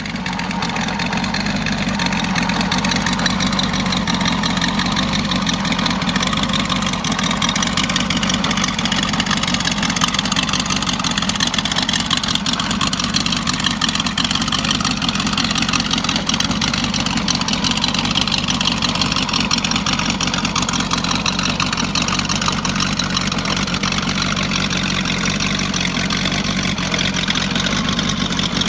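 Custom motorcycle's Ford 302 small-block V8 idling steadily.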